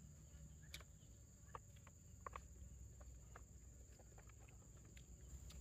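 Near silence: faint outdoor ambience with a steady high-pitched tone and a scatter of faint short clicks.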